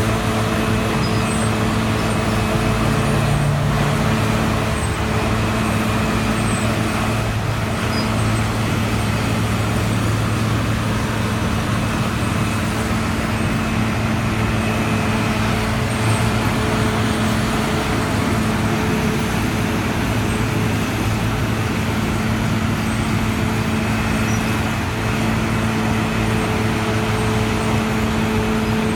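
Asphalt milling machine at work, its diesel engine running with a steady drone under the continuous grinding noise of the machine tearing up the old asphalt pavement.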